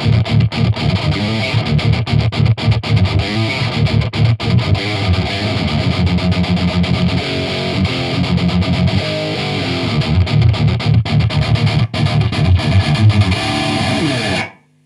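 Electric guitar with a Bill Lawrence bridge pickup, played through a Randall RG100HT amplifier with an MXR six-band EQ and Furman PQ4 boosting the signal. It plays a heavily distorted metal riff with fast, tight low chugs, and stops abruptly near the end.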